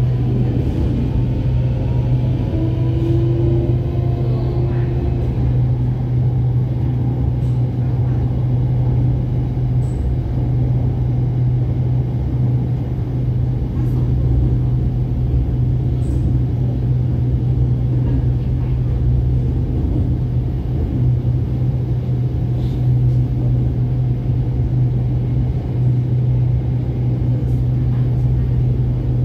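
Cabin noise of an SRT Red Line electric commuter train running on elevated track: a loud, steady low rumble. A faint rising motor whine in the first couple of seconds marks it picking up speed out of the station.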